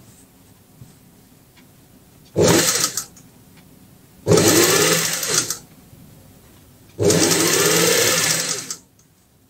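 Industrial sewing machine stitching in three short runs, each starting and stopping abruptly: a brief one of about half a second, then one of just over a second, then a longer one of nearly two seconds.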